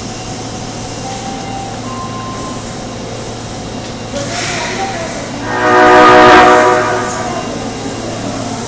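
Osaka subway 22 series train's horn sounding once for about a second, a loud, multi-toned blast that is unusual for this horn, as the train departs. Steady train and station background noise runs underneath.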